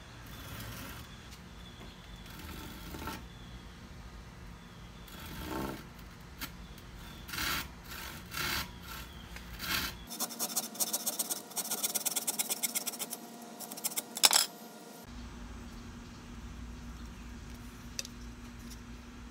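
Hand saw cutting through a strip of white trim board: a few separate strokes, then a quicker run of strokes for about five seconds, ending with one sharp stroke.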